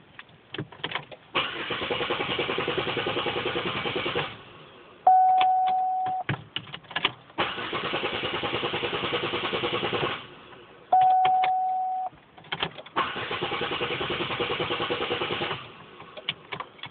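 Pontiac Grand Am's starter cranking the engine three times, each a rhythmic churning of about three seconds that stops without the engine catching: the car's intermittent no-start. Between the tries come key clicks and a steady beep about a second long, heard twice.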